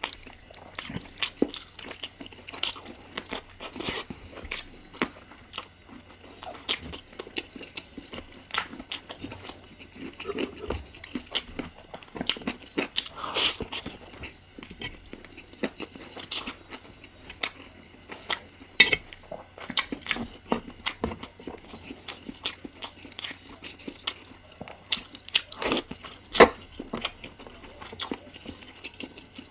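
Close-miked eating of spicy chicken curry: chewing and biting, with many irregular sharp clicks and smacks.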